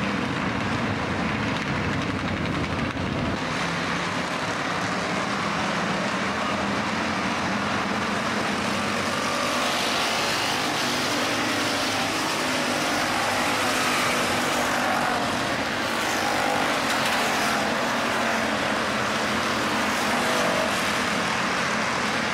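A field of IMCA Hobby Stock race cars running laps during the feature: a steady, continuous mix of several engines.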